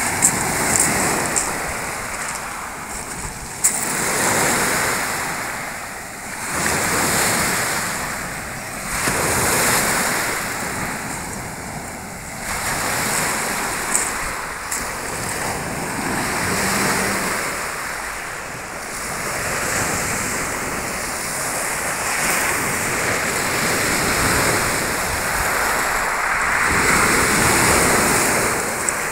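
Black Sea surf breaking on a pebble beach, the wash swelling and falling back in repeated surges every few seconds.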